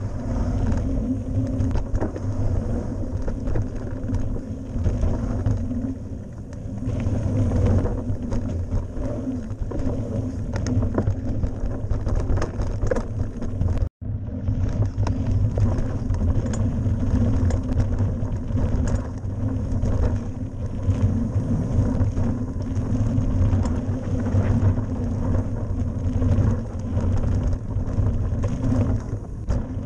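Mountain bike riding fast down a dirt forest trail, heard from a handlebar-mounted camera: a strong steady low rumble of tyres rolling over dirt and stones, with scattered knocks and rattles from the bike over bumps. The sound cuts out for an instant about halfway through.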